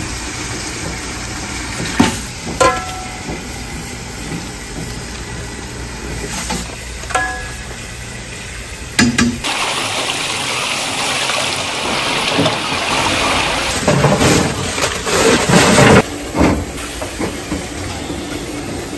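A few metallic clinks of a stainless perforated strainer against a pot as bean sprouts are scooped out, over a steady kitchen hum. About halfway in, a tap runs hard into a sink of water, with splashing as hands wash bracken stems in it.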